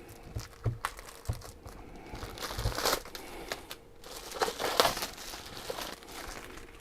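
Plastic wrapping being pulled off and crumpled in the hands: irregular crinkling rustles, loudest about halfway through and again near two-thirds of the way, with a few light knocks.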